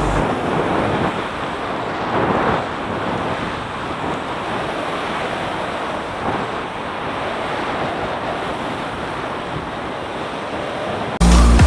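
Sea surf washing onto the shore: a steady rush with swells about two and a half seconds in and again about six seconds in.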